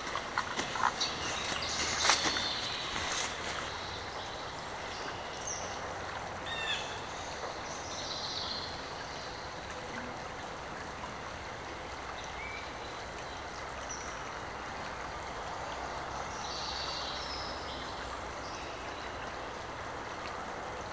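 Footsteps crunching on a gravel trail for the first few seconds, then the steady rush of a shallow creek, with short bird chirps scattered throughout.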